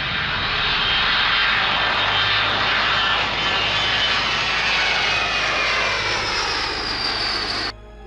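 Jet noise from a four-engine Boeing C-135-family jet taking off and climbing past, a loud roar with a whine that falls in pitch as it goes by. The sound cuts off abruptly near the end.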